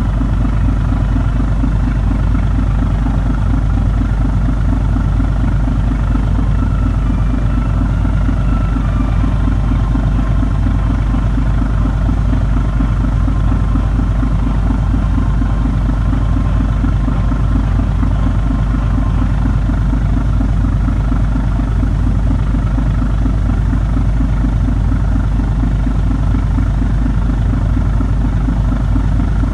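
Steady low rumble of a harbour cruise boat under way, its engines running with a fast, even flutter.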